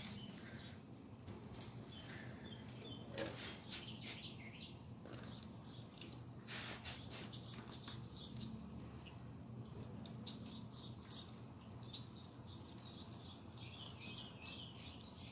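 Faint scattered clicks and knocks of parts being handled, with birds chirping faintly in the background.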